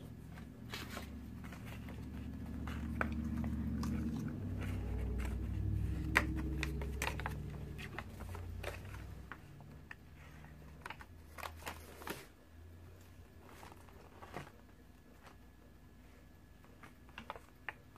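Paper checklist and plastic blind-bag packaging being handled, with scattered crinkles and clicks. Under them a low rumble builds over the first few seconds and fades after about eight.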